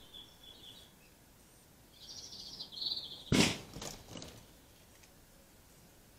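Small birds chirp twice. Then a nail gun fires once, about three and a half seconds in, with a sharp loud bang, followed by two fainter knocks.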